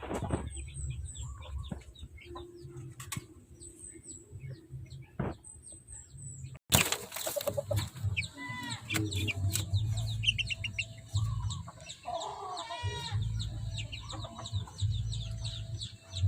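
Young native gamecock chickens, about 45 days old, peeping and clucking in many short high calls. About seven seconds in the sound breaks off and jumps louder, and the calls go on over a low steady rumble.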